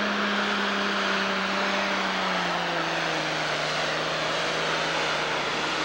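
Pro Stock pulling tractor's turbocharged diesel engine running hard at full throttle under load. Its pitch drops a little about two and a half seconds in.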